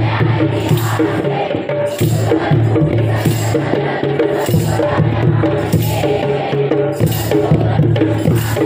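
Instrumental music with a steady percussion beat under a repeating melody.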